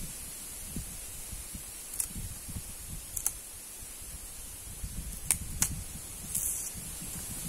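A knife cutting and peeling the husk off a wild bamboo shoot: a few sharp cracks and snaps, about two and three seconds in and then two close together about five seconds in, over a steady high hiss.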